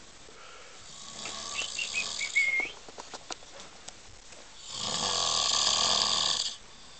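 A man snoring in his sleep: a few short whistling notes about two seconds in, then one long, loud snore lasting about two seconds near the end.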